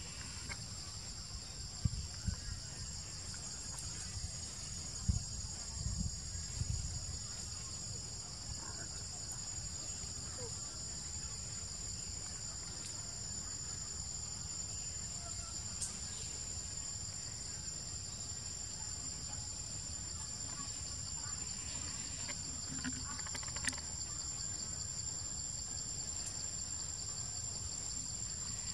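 Steady, high-pitched drone of a chorus of insects, unbroken throughout, with a few low thumps in the first seven seconds.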